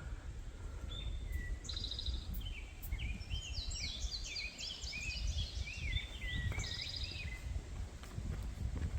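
A songbird singing a long, rapid, jumbled phrase of quick rising and falling notes, starting about two seconds in and stopping near the end, over a steady low rumble.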